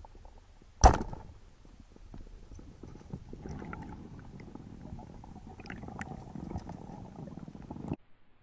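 Speargun firing underwater: one sharp, loud crack about a second in that dies away quickly. From about three seconds in there is a rough underwater rushing noise with small clicks, which cuts off near the end.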